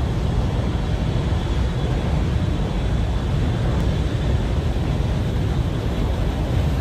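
Jet fighter in flight: a steady, deep engine rumble with an even hiss over it.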